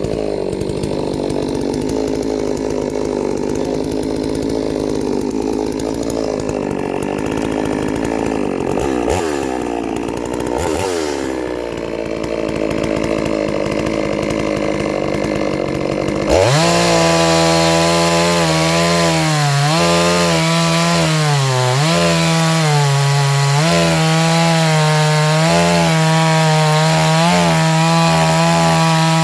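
Two-stroke chainsaw running and cutting wood. About halfway through the sound jumps abruptly to a louder, higher-pitched saw at full throttle, its pitch dipping again and again as the chain bogs down in the cut.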